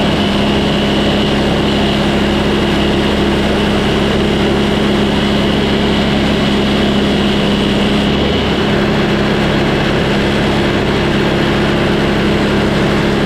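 Frontier OS18 portable band sawmill running steadily, its gasoline engine and band blade making a loud, even drone. The deepest part of the sound drops away about two thirds of the way through.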